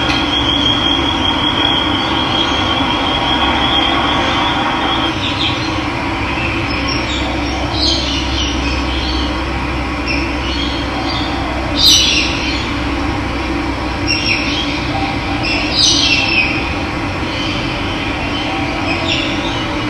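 Steady rush of running water, with a few short bird calls over it. A thin high whistle-like tone sounds for the first few seconds.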